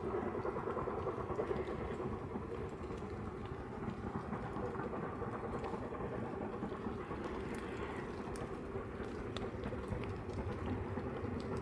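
A railway train running, a steady rumble with faint scattered clicks.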